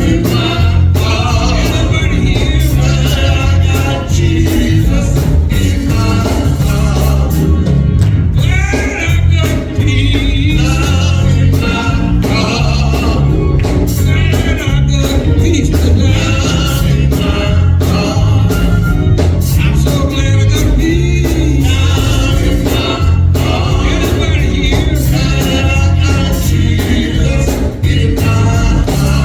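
Gospel song: singing over a band with a strong, steady bass.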